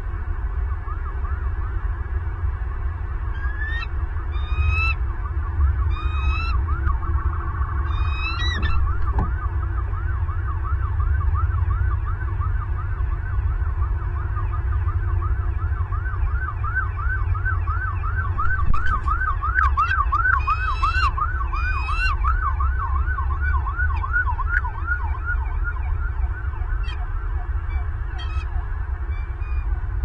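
Bald eagle calling: bouts of short, high, squealing notes in quick series, over a fast run of rising-and-falling chirps about three a second. A steady low rumble lies underneath.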